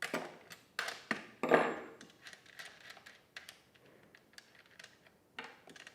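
Scattered metallic clicks and clinks from a wrench working the guide bar nuts off their posts on a Husqvarna 120 Mark II chainsaw, the loudest knock about a second and a half in.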